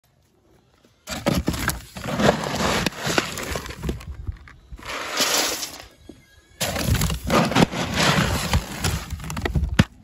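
Pig feed pellets scooped out of a paper feed sack and poured into a galvanized metal bucket, rattling and hissing in three long pours with short pauses between them.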